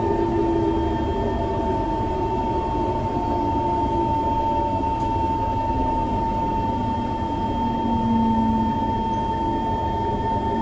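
SMRT C151 metro train running, its high-frequency shunt-field chopper control giving a steady high whine over the train's low running rumble.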